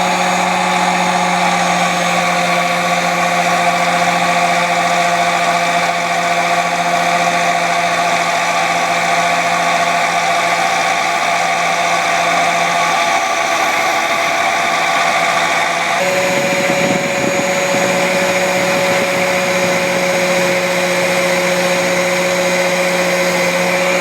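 A bench grinder fitted with a wire brush wheel running steadily, with a hum and a steady whine over a rough hiss. About two-thirds of the way through, the pitch of the whine shifts suddenly and then holds steady again.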